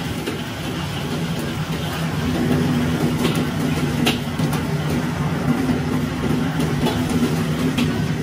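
Steady hum of a commercial kitchen's wok burner and ventilation, while a steel ladle stirs beef in a wok, clinking sharply against the wok a few times.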